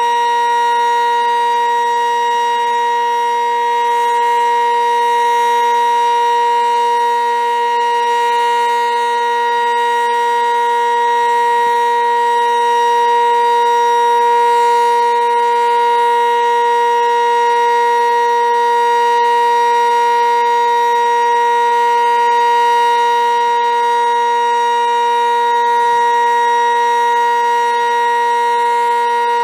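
Sentry 15V2T outdoor warning siren sounding a loud, steady tone at an unchanging pitch: the Alert signal of its monthly test.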